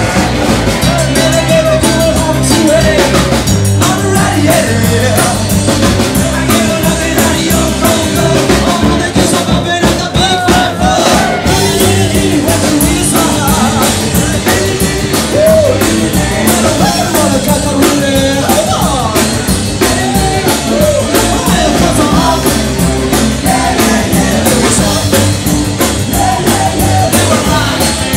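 Live rock and roll band playing loud: a singer over drums and guitar, with no break.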